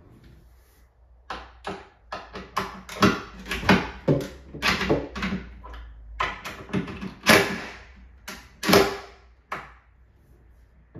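Cabinet door hardware being worked: a quick, irregular series of sharp clicks and knocks, about three a second, as an upper kitchen cabinet door that is binding is handled and its hinges adjusted. The loudest knocks come at about 3, 7 and 9 seconds.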